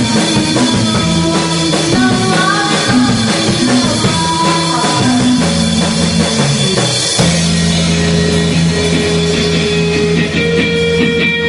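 A rock band playing live, with drum kit and guitars. About two-thirds of the way through, the busy moving riff gives way to long held notes.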